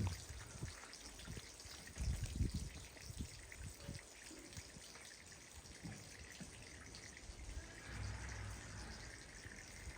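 Water trickling and dripping faintly over cobbles, with a dull low bump about two seconds in.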